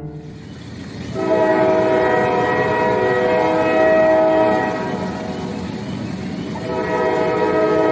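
Train horn sounding a long chord of several tones over a noisy train rumble. It fades a little midway and swells again near the end.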